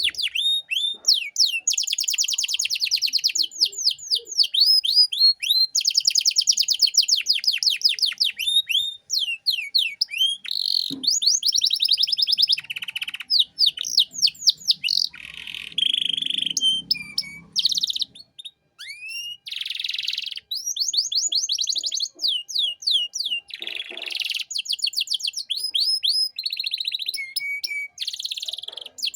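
Domestic canary singing a long, varied song: fast rolling trills of rapid repeated down-slurred notes alternating with chirps and short pauses.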